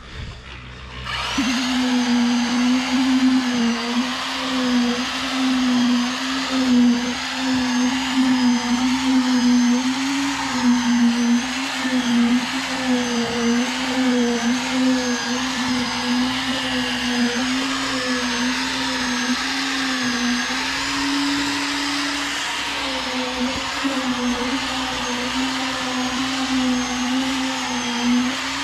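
Electric concrete poker vibrator switching on about a second in and running continuously as it compacts freshly poured concrete, a steady hum that wavers slightly in pitch.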